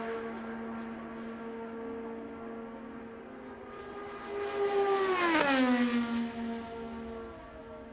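Dallara DW12 IndyCar's twin-turbo V6 at full speed on the oval: a steady high engine whine that swells as the car passes close about five seconds in, its pitch dropping sharply as it goes by, then fading.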